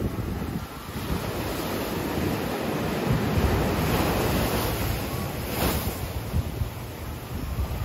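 Small waves breaking and washing up onto a sandy beach, the wash swelling about midway, with wind buffeting the microphone.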